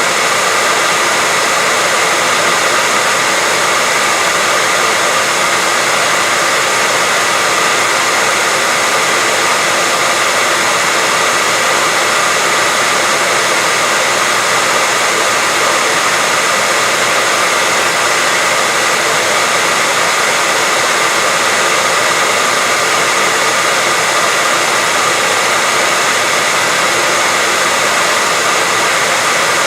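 Steady white noise: an even, unchanging hiss weighted toward the high end, with a faint steady high tone running through it.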